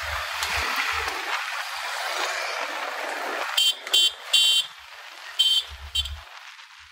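Wind and street traffic noise while riding a scooter, then a vehicle horn honking in five short, high pitched toots, starting about three and a half seconds in.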